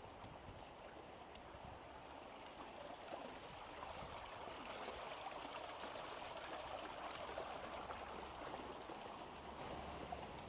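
Running water, like a small stream or roadside channel flowing, faint and steady. It swells louder through the middle and eases slightly near the end.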